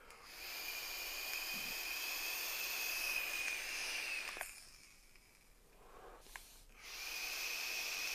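Draws on a vape tank fitted with a 0.3-ohm sub-ohm coil: air hissing through the tank's airflow holes with a steady high whistle. There is one long draw of about four seconds, then a second draw begins near the end.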